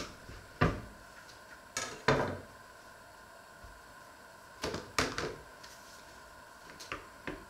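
Short knocks and scrapes of bread and a knife being handled on a wooden cutting board, a few at irregular intervals, the loudest about half a second and about two seconds in.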